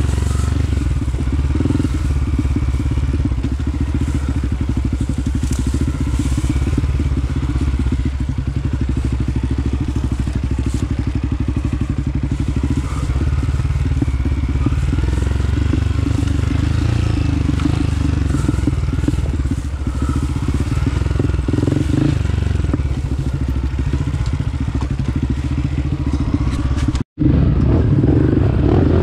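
Dirt bike engine running steadily while ridden, a low, ragged engine note. The sound cuts out for a moment near the end and then carries on.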